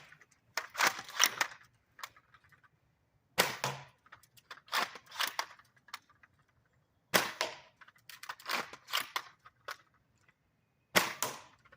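Kirin Type A shell-ejecting dart blaster firing three shots, about every three and a half seconds. Each shot is followed by a quick run of clacks as the blaster is cycled, throwing out the spent shell and chambering the next.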